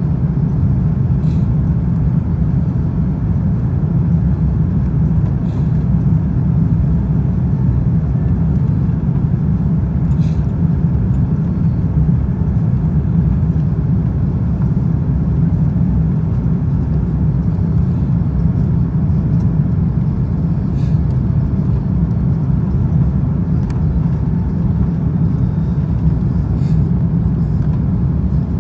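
Steady low rumble inside an Airbus A330's cabin on approach with flaps extended: engine and airflow noise. A few faint ticks scattered through it.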